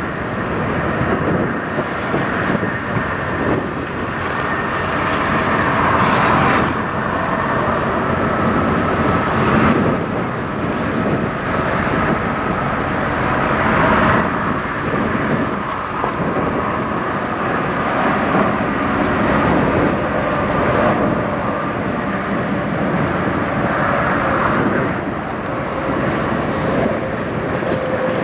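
Diesel semi-truck engines idling, a steady mechanical running with faint humming tones.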